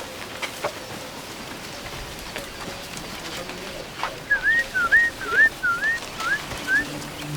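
A bird calling: a quick run of about seven short, rising whistled notes, a little past the middle, over faint outdoor background. Low music starts near the end.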